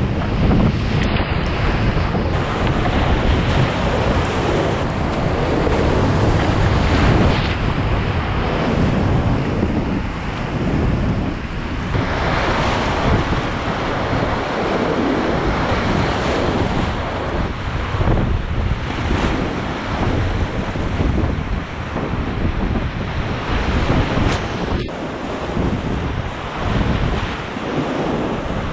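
Whitewater rapids rushing and churning around a kayak running them, with wind and water buffeting the camera's microphone. The noise swells and eases as the boat moves through the waves.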